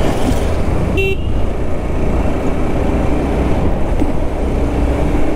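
Motorcycle riding along a road: engine running under a steady low wind rumble, with a short horn beep about a second in.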